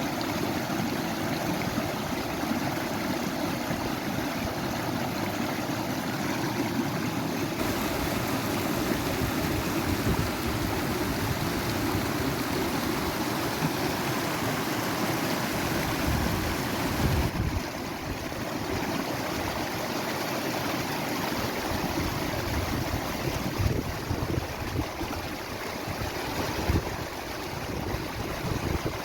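Running water in a stream, a steady rush that changes character suddenly twice, about a third and again about two-thirds of the way through.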